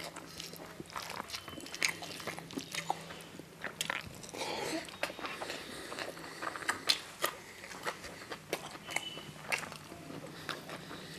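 A person eating by hand, close to the microphone: chewing and lip-smacking through mouthfuls of jeera rice with chickpeas and paneer, heard as many irregular wet clicks and smacks.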